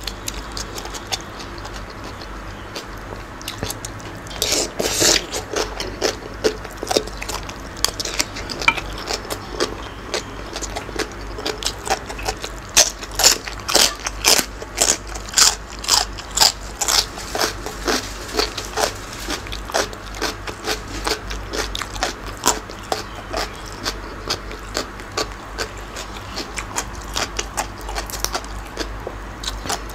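Close-miked chewing of a spicy squid salad with raw vegetables and herbs: wet mouth smacks and crunches in an irregular run of several a second, loudest for a stretch a few seconds in and again in the middle.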